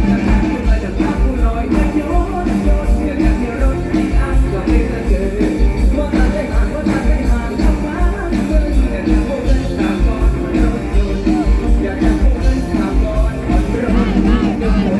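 Live mor lam band music: a medley with a steady, heavy drum beat, melodic lines and singing.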